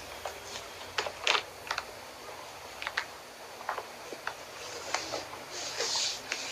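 Irregular light clicks and taps with a brief rustle near the end: kittens tussling on a lap, claws and paws catching on clothing.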